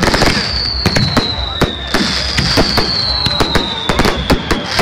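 Fireworks display: rapid bangs and crackling from shells bursting overhead. Two long whistles come one after the other, each falling slowly in pitch.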